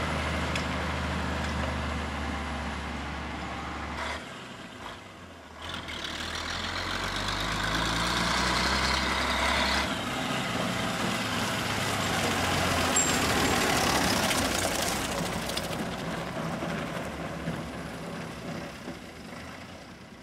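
Diesel engine of a BM Bison tractor, re-engined with a Volvo Viking truck engine, running as the tractor drives. The engine sound breaks off and dips about four seconds in, shifts again about ten seconds in, and fades away near the end.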